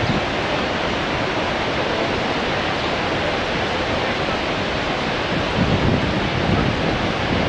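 Steady rush of Niagara's Horseshoe Falls, a dense even sound of falling water. Low wind buffeting on the microphone joins in from about five and a half seconds in.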